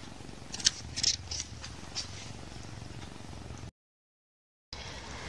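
A few light clicks and rustles of paper and pen being handled over a steady low rumble, then about a second of dead silence at an edit cut.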